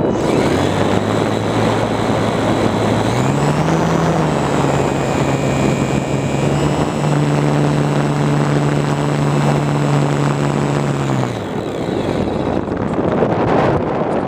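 Radio-controlled model plane's motor and propeller running as a steady whine over wind rushing past the microphone. The pitch steps up twice as the throttle is opened, then the motor cuts off about eleven seconds in, leaving only the wind noise.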